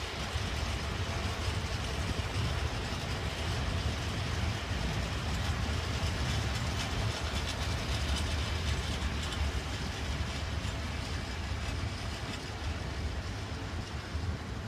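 A train passing on the line, a steady rumble of wheels on rail with a faint rattle, easing off near the end.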